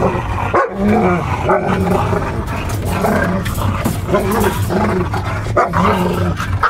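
Dogs in a wire crate growling and snarling in repeated short bouts as a heeler squabbles with a shepherd for a place near the owner, over a steady low hum.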